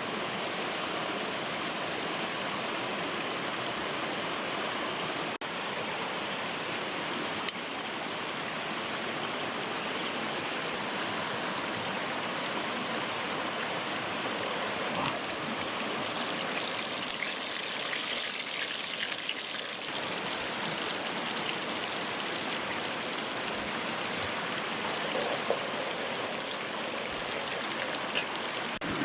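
Steady rushing of river water flowing over a small waterfall, with a couple of faint clicks.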